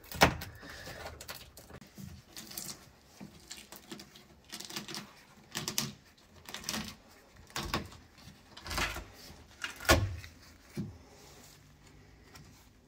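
Intermittent knocks, clacks and light scraping of parts being worked loose and handled on an old car body, with about eight sharp knocks spread irregularly through.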